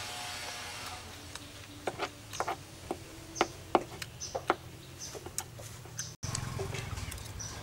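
Chickens clucking: a scattered run of short, sharp clucks over a low, steady background hum.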